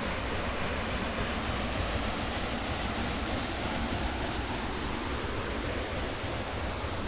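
Steady rush of flowing spring water, an even hiss with a low rumble beneath it.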